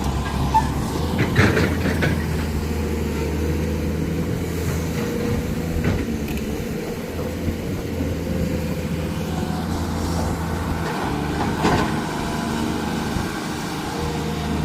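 Heavy diesel machinery engine running steadily, with a few sharp knocks over it.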